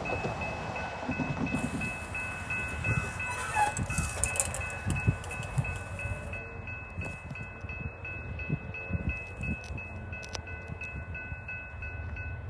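Railroad grade-crossing warning bell starting to ring as the crossing activates, then ringing on in a steady, rapidly repeating pattern. Low rumbling and a few thumps lie underneath.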